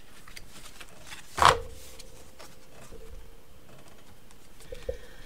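Sheets of A4 cardstock being handled and laid down on a desk: light paper rustles and taps, with one loud, sudden slap of card about a second and a half in.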